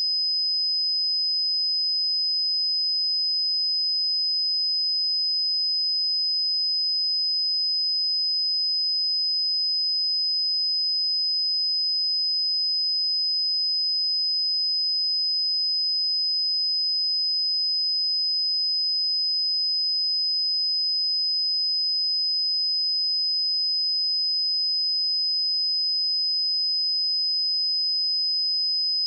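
Steady 5034 Hz sine-wave test tone, a single high-pitched pure tone held at constant level and pitch.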